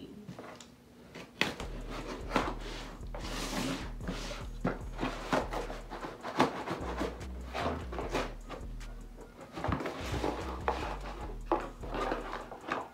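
Cardboard shipping box being cut open with a safety box cutter and its flaps pulled open: scraping of the blade along the box, with repeated sharp taps and knocks on the cardboard.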